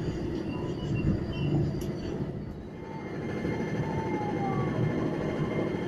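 Steady low rumble of a KRL Commuter Line electric train (ex-JR 205 series) heard from on board, easing briefly about halfway through.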